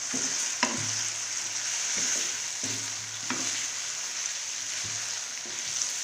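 Minced chicken (keema) sizzling in hot oil in a kadai while it is stirred, a steady frying hiss. A few sharp knocks of the stirring utensil against the pan, about half a second in and again after about three seconds.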